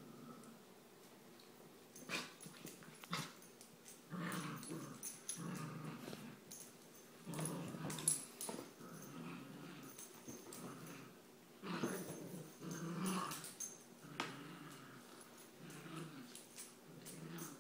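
Puppies growling in short repeated bouts while they play-fight.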